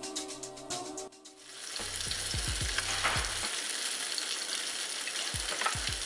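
Background music for about the first second, then a salmon fillet frying in a pan, sizzling steadily.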